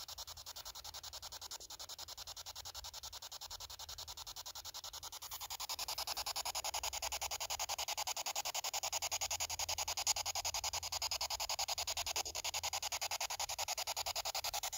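Handheld spirit box (radio-sweep ghost box) scanning through radio frequencies: a steady hiss of radio static chopped into rapid, even pulses. It gets louder about five or six seconds in.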